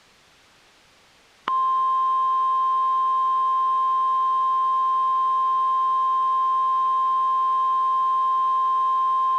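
Emergency Alert System attention tone: one loud, steady high-pitched tone that starts about a second and a half in and holds for about eight seconds, then stops sharply. It signals that a spoken emergency alert, here a child abduction alert, comes next.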